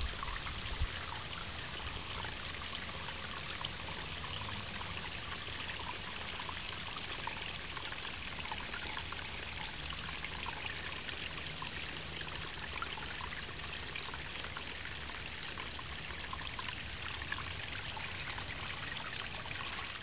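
Shallow water trickling steadily over rocks.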